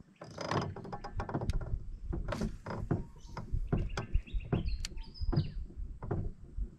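Irregular knocks and clicks of fishing gear being handled in a small boat as a cast is readied. A bird gives a few short chirping calls in the middle.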